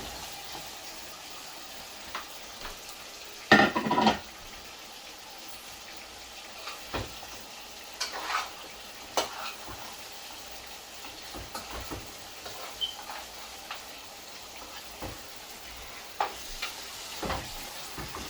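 Pieces of lamb going into a pot of frying curry masala and being turned over with a spoon: a steady sizzle with scattered knocks and scrapes of the spoon against the pot, the loudest burst about three and a half seconds in. The masala is at the stage where the oil has risen to the top, ready for the meat.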